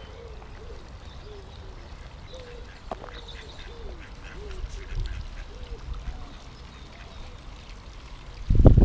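Mallard ducks giving a string of short, soft quacking calls. Just before the end a sudden loud rumbling noise sets in.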